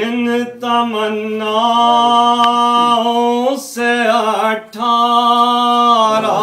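A man's solo unaccompanied voice chanting an Urdu noha (Shia lament poem), holding long steady notes with a short break in the middle.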